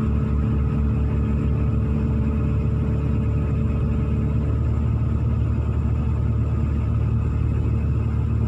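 Hino 500 dump truck's diesel engine running steadily with a low, even rumble.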